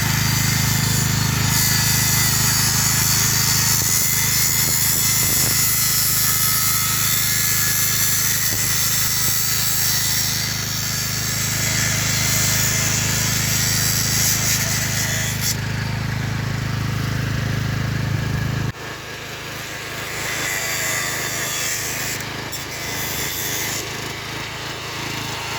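A motor-driven machine running steadily, a low drone under a loud hiss; the low drone cuts off suddenly about 19 seconds in, leaving a quieter hiss.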